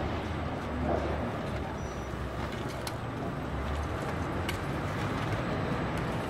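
Steady city street background: a constant low rumble of traffic under an even hiss, with a few faint clicks.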